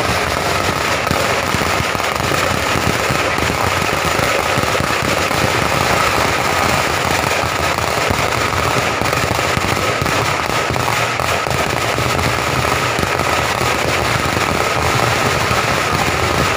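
Fireworks and firecrackers going off in a dense, unbroken rapid crackle of bangs.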